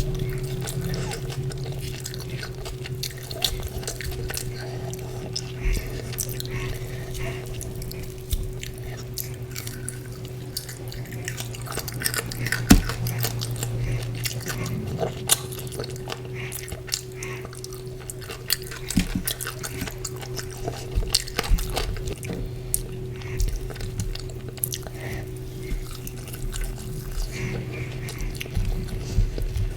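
Close-miked eating of chicken curry with porota: irregular wet chewing, smacking and squishing clicks over a steady low hum.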